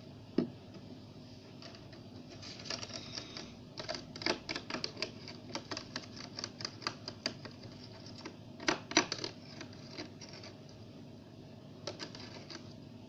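Metal spoon clicking and scraping against a thin clear plastic tray as it stirs a glue, water and body-lotion slime mixture: irregular light taps, with two sharper knocks about nine seconds in.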